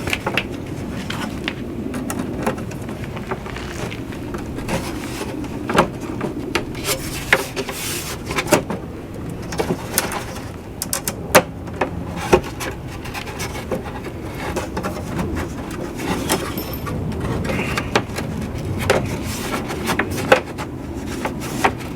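Hand pop-rivet gun being squeezed on 1/8 inch aluminum rivets: a string of irregular clicks and sharp snaps as the gun draws each rivet tight and the mandrel breaks off, over a steady low rumble.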